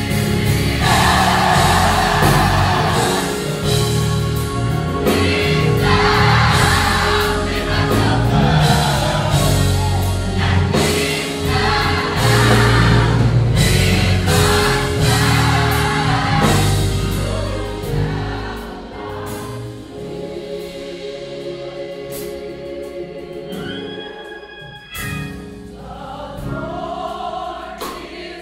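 Gospel choir singing live with band accompaniment. About two-thirds of the way through, the bass drops out and the music gets quieter, leaving the voices over lighter backing.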